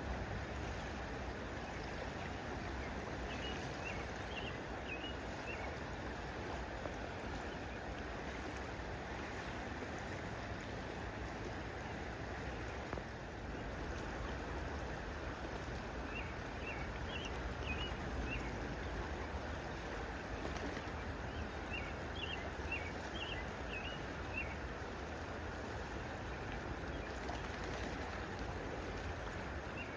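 Steady rush of flowing water. A bird gives several short runs of quick, high chirps over it.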